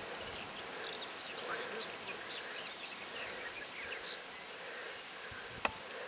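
Faint outdoor ambience: a steady hiss with scattered short, high chirps of small creatures, and one sharp click near the end.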